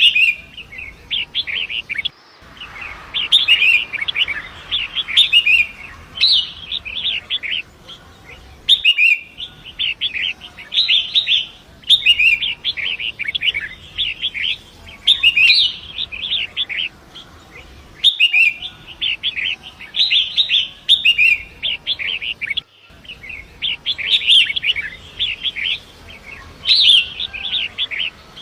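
Long-tailed shrike (pentet) singing: repeated bursts of rapid, scratchy chattering notes, each lasting a second or two with short gaps between, over a faint steady rush of river water.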